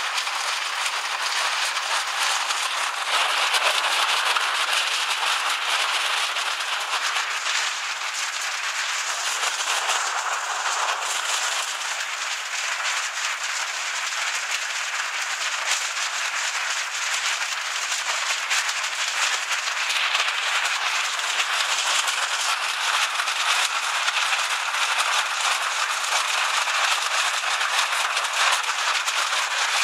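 Hailstorm: hailstones and heavy rain pelt down in a dense, steady clatter of countless small impacts on the carport roof overhead and the concrete.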